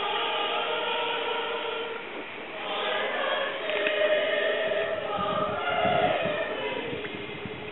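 A group of voices singing together in held, sustained notes, with a brief break about two seconds in before the singing picks up again.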